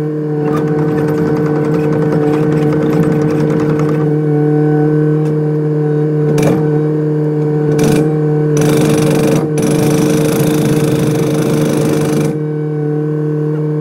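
Kubota excavator's diesel engine running at a steady pitch, with a hydraulic breaker hammering in fast, even blows in several stretches that start and stop.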